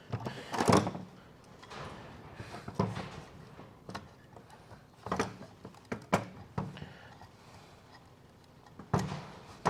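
Small clamps being handled and set onto a wooden board, giving a handful of separate knocks and clatters a second or two apart.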